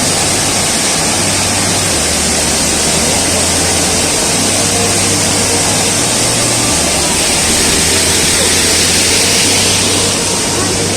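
Waterfall: falling water rushing in a loud, steady hiss.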